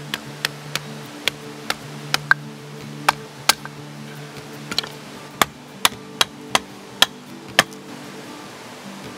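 A string of about sixteen sharp, irregularly spaced knocks or taps that stop about a second and a half before the end, over background music of long held notes.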